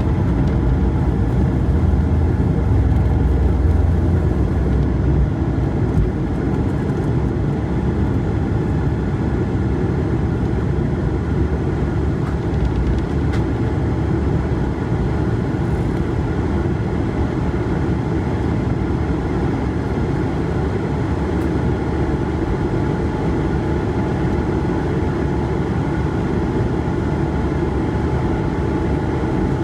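Airbus A220-300's Pratt & Whitney PW1500G geared turbofan engines running at high thrust during departure, heard from inside the cabin as a steady, loud roar with a faint steady whine. The deep rumble is a little heavier in the first few seconds and then evens out.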